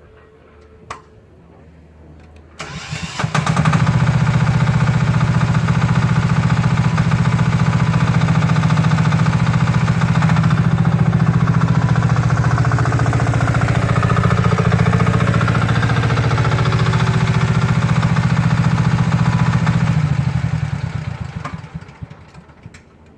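Haihong 1-tonne mini excavator engine: a click, then the engine is started and runs loud and steady at one speed, then winds down and stops near the end.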